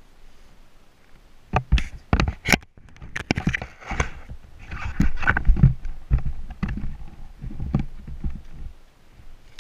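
Handling noise from the sled-mounted camera being moved and reset: a run of sharp knocks and thumps, with rubbing rustle between them, and a few more scattered knocks later on.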